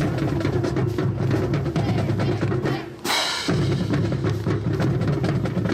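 High school marching band playing its school song, with bass drums and snare drums prominent. The music drops out briefly about three seconds in, then comes back with a bright crash and the full band playing again.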